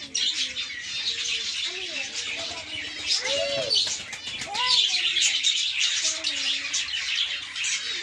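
A roomful of caged budgerigars and small finches chirping and chattering at once in a dense, continuous twitter, with some lower gliding notes underneath.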